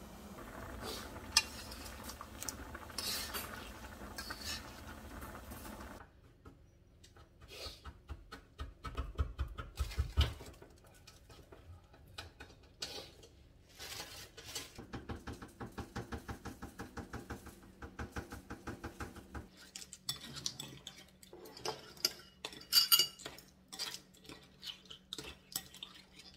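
A stainless pot of clam noodle soup bubbling at a boil. Then come light knocks and clinks of ceramic bowls and utensils, a run of quick even clicks like a hand sesame grinder, and chopsticks and spoons clinking against the bowls as the noodles are eaten.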